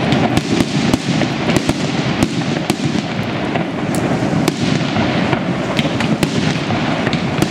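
Fireworks display: aerial shells bursting in quick succession, many sharp bangs and crackles overlapping over a continuous low rumble.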